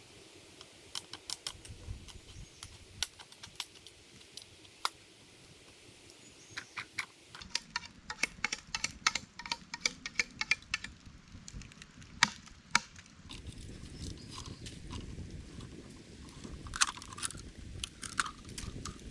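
Irregular sharp clicks and taps, like objects being handled or knocked together, thickest in the middle, with a low rumbling noise underneath from about seven seconds in.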